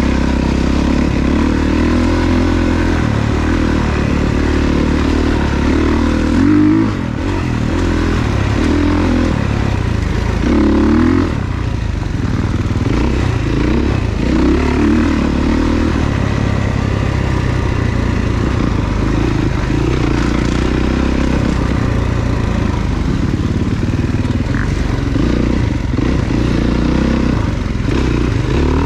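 Off-road dirt bike engine running on a woods trail, its revs rising and falling again and again with the throttle, with brief louder bursts of throttle and some clatter from the bike.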